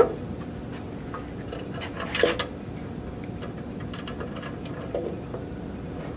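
Scattered small clicks and knocks of a case and tools being handled against a wooden board, with a louder clatter about two seconds in, over a steady low hum.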